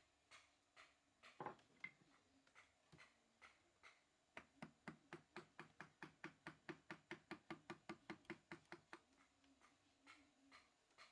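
Mallet tapping a wood-carving chisel into solid wood. First a few scattered taps, then about four seconds in a fast, even run of about five light taps a second, then scattered taps again near the end.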